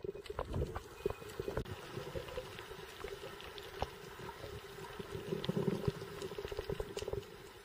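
Underwater sound picked up by the snorkeler's camera: a steady muffled water wash with a low hum and many irregular small clicks and crackles.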